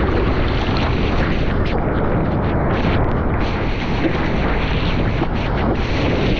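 Surfboard riding through whitewater on a wave: water rushing and spraying past a GoPro's microphone with wind on it, a loud steady rush with no let-up.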